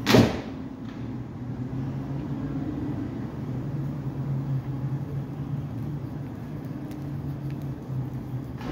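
Class 450 Desiro electric multiple unit pulling out of the platform: a short, loud burst of noise as it starts, then a steady electric hum as it moves away.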